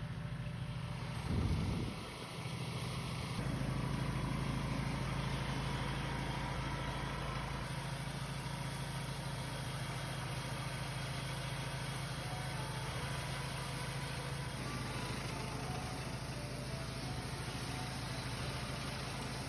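A small engine running steadily at an even speed, with a steady low hum throughout. There is a brief low thump about a second and a half in.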